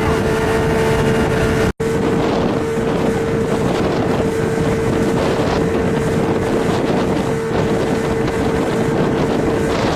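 Speedboat running at speed, its engine holding a steady whine, with wind buffeting the microphone. All sound drops out for an instant a little under two seconds in.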